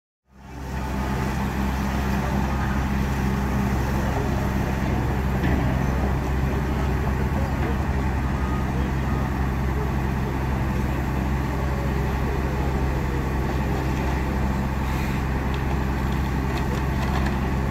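Heavy diesel engine running steadily at a constant speed, the drone of fire apparatus pumping water to an aerial ladder's hose stream. It fades in right at the start.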